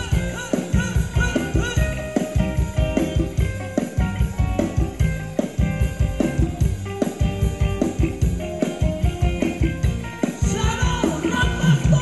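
Thai ramwong dance music from a live band, with a steady drum-kit beat under melodic instrument lines.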